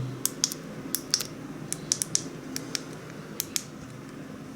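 Buttons of a Tomahawk 9030 car alarm key fob being pressed: about ten short, sharp clicks, several in close pairs, clicking cleanly with no mushy give.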